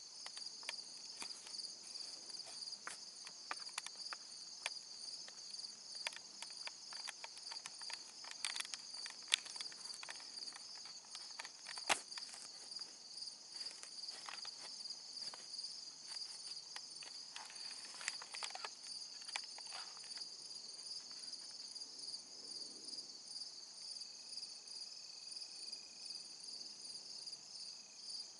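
Steady, evenly pulsing chorus of insects in woodland. Scattered short crackling ticks come through most of the first two-thirds, one sharp one near the middle louder than the rest, and a faint thin whistle-like tone sounds near the end.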